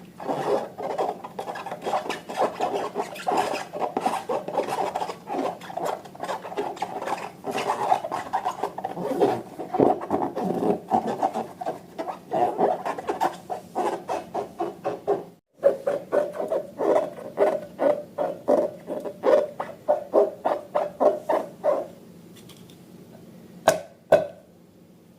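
Slime being mixed and worked, with quick rhythmic scraping and squishing strokes. The strokes break off suddenly about fifteen seconds in, resume at about three a second, and stop a few seconds before the end, followed by two sharp clicks.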